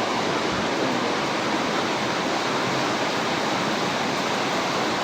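Steady hiss of heavy rain, an even wash of noise with no breaks.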